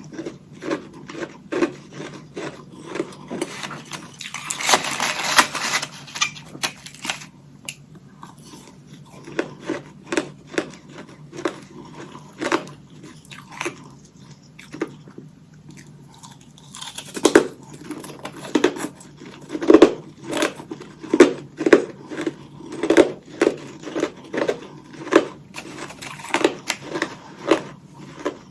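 Close-up biting and chewing of hollow ice sticks coated in freezer frost: a string of crisp crunches. A dense grinding crunch comes about five seconds in, and louder bites come roughly once a second in the second half.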